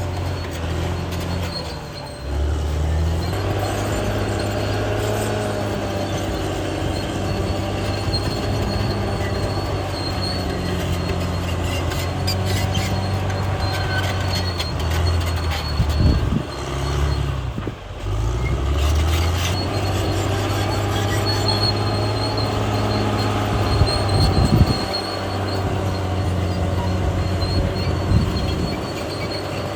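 CAT D6R XL bulldozer's diesel engine running under changing load, its pitch rising and falling as it pushes, with a high squeal from the steel tracks or running gear coming and going. The engine drops back briefly twice, about two seconds in and again around the middle.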